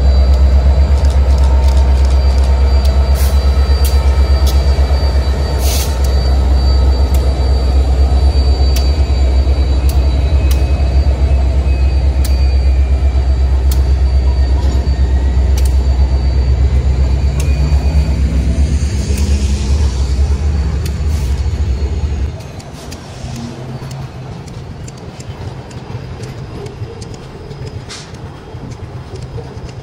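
EMD SD70M diesel-electric locomotives with 16-cylinder two-stroke engines passing close by, a loud steady low engine drone under rapid clicking of wheels over the rail joints and a thin high wheel squeal. About three-quarters of the way through, the low drone cuts off suddenly, leaving the quieter clatter and clicks of flatcars rolling past.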